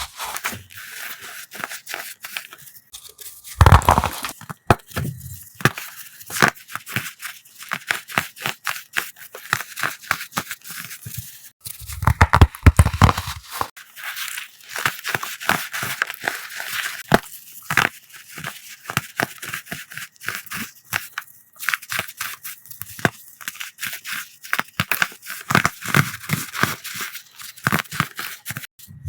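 Coloured blocks of chalk crushed by hand: a continuous crackly, slightly squeaky crunching made of many small cracks, with heavier crunches about four seconds in and again around twelve to thirteen seconds.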